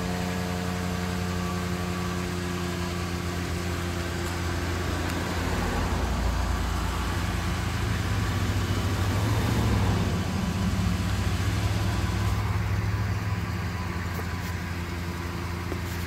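Pickup truck engine idling steadily, a low even rumble that grows louder for several seconds midway and then eases back.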